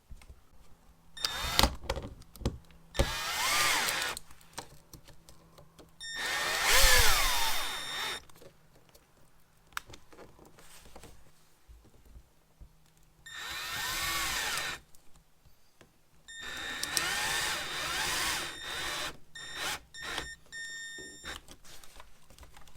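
Cordless drill/driver running in four short bursts, its motor pitch rising and falling, with clicks and knocks of handling between the runs: screws being driven to mount the thermostat to the wall.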